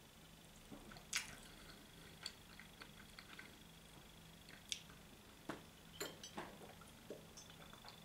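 Faint drinking sounds from a glass swing-top bottle: scattered swallows, small wet mouth clicks and light knocks of the glass.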